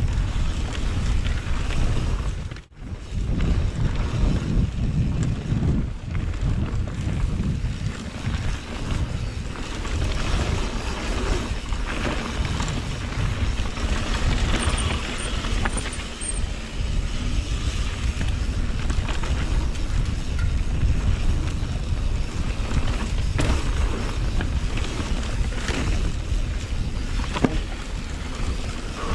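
Mountain-bike descent heard through a GoPro's microphone: wind buffeting the mic over a steady low rumble of tyres on a rocky trail, with the bike knocking and rattling over stones. The sound cuts out for a moment about three seconds in.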